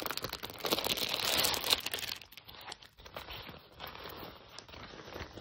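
Packaging crinkling and tearing as a parcel is pulled open, busiest in the first two seconds. It then drops to fainter rustling as the fabric travel bag is handled.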